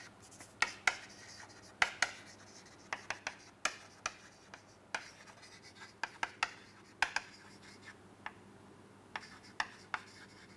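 Chalk writing on a chalkboard: a run of short, irregular scratches and taps as the letters are formed, sometimes several in a second, with brief pauses between words.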